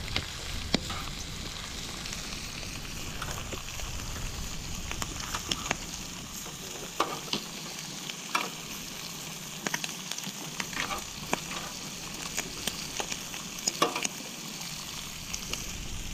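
Garlic bread and squid sizzling steadily on a gas barbecue hotplate, with scattered short sharp clicks and pops.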